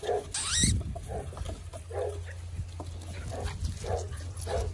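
Puppies giving short whimpering yelps, one at a time every second or so, as a litter crowds around an adult dog.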